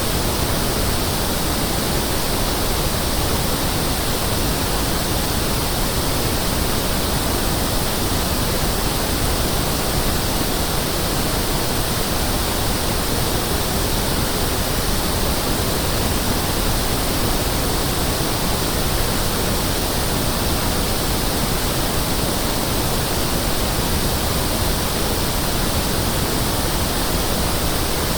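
Pink noise test signal: a steady, even hiss spread across the whole frequency range, holding one level without change.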